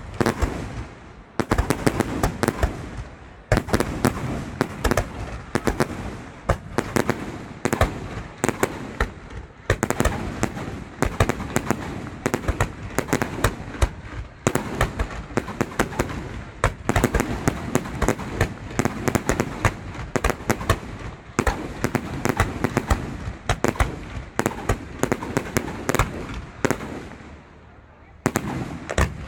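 Fireworks display: aerial shells bursting in a dense, continuous barrage, several sharp bangs a second over a rumbling wash of echo, thinning out briefly near the end.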